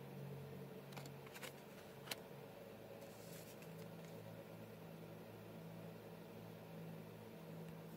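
Faint steady low hum of room tone, with a few light clicks and a short rustle as tarot cards are handled.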